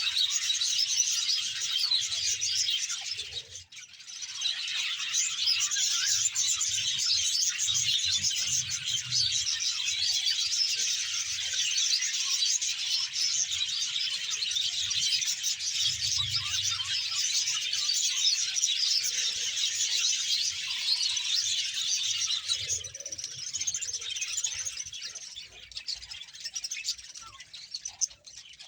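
A large flock of budgerigars chattering and chirping together, a dense, continuous chorus of many small high calls that dips briefly about three seconds in and thins out near the end.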